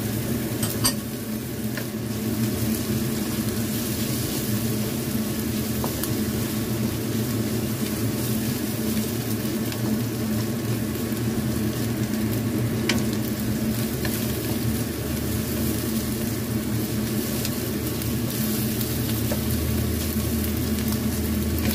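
Diced ham and onion sizzling in hot oil in a nonstick wok, stirred with a wooden spatula that ticks against the pan now and then.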